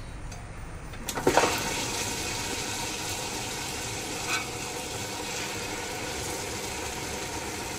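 Table-top wet grinder starting about a second in, then running steadily as its granite roller stones turn in the steel drum and grind soaked urad dal with water, a wet, churning sound.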